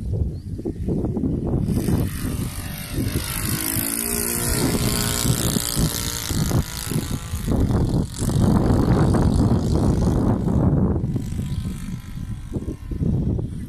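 Model Fokker Dr.1 triplane's motor and propeller running at full power: it comes up loud as the plane takes off and passes, its pitch sliding down as it goes by, then drops off near the end as it climbs away. A heavy low rumble runs underneath.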